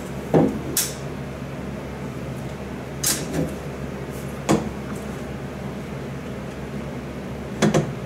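A handful of short, sharp clicks and knocks, scattered a second or more apart, as a cordless drill and a plastic mounting plate are handled against a wall, over a steady low hum. The drill's motor is not run.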